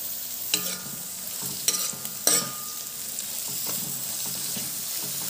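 Sliced shallots, green chillies and ginger sizzling in hot coconut oil in a kadai as they are stirred and sautéd with a spatula. The spatula knocks sharply against the pan three times in the first half, each knock ringing briefly.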